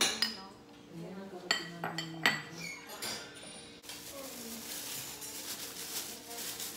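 A metal spoon clinks against ceramic bowls a few times, each clink ringing briefly. From about halfway in, a soft crinkling rustle follows, as thin plastic food-prep gloves are handled and pulled on.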